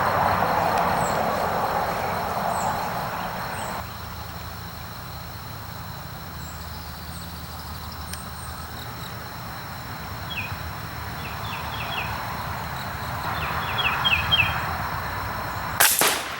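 Birds chirp briefly against outdoor background noise. Near the end comes a single sharp shot from a suppressed .22 LR rifle firing a subsonic round (a Beretta ARX 160), taken at a squirrel about 80 yards away.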